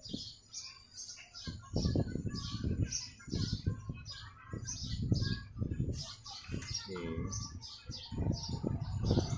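Small birds chirping in a quick repeated pattern, two or three high chirps a second, over louder, irregular low muffled rumble and knocks.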